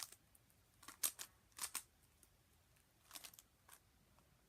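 Zcube M speedcube being turned by hand: short clusters of light plastic clicking, about five groups spread irregularly across the few seconds.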